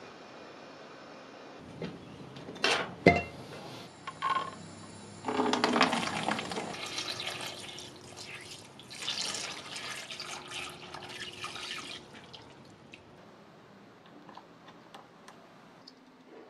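A few knocks and one sharp clack, then water poured into a plastic tub over a rusty steel wrench for about six seconds as the tub is filled for an electrolysis rust-removal bath. Faint small clicks follow near the end.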